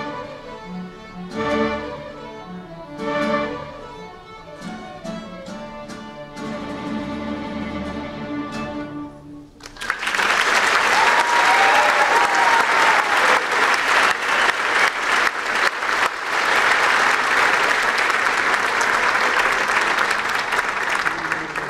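A student string orchestra of violins, violas, cellos and basses plays the closing bars of a piece and stops; about ten seconds in, the audience breaks into loud, steady applause.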